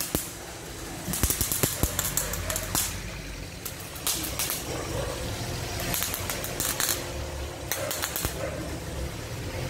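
Welding on a Honda Fit's new sport exhaust pipe: short hissing bursts of the welder, six or so about a second apart, over a steady low hum.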